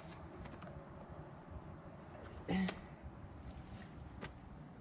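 A steady, high-pitched insect chorus over a quiet background, with a short vocal exclamation about halfway through.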